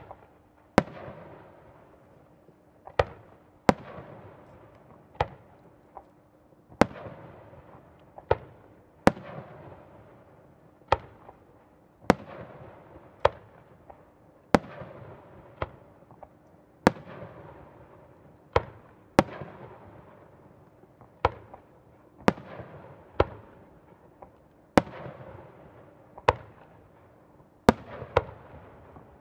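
Aerial firework shells bursting one after another: about two dozen sharp bangs, roughly a second apart, each trailing off in a rumbling echo.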